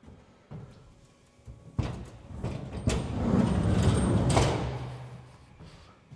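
A heavy truck-bed toolbox scraping as it is slid across the bed, with a few knocks at first; the scrape swells and then fades out near the end.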